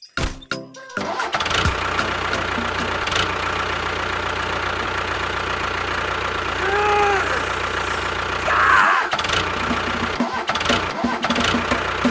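A motor starts up about a second in and then runs steadily. A brief rising-and-falling tone comes near the middle, and a short falling squeal follows soon after.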